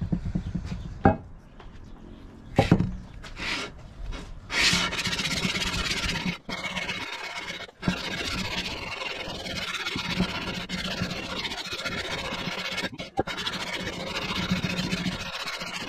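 Cast iron exhaust manifold from a 1961 Cadillac 390 V8 scraped face-down over 80-grit sandpaper on a granite slab: a few knocks, then steady gritty sanding from about five seconds in, with a couple of short breaks. The sanding flattens the warped head mating surface so the gasket will seal.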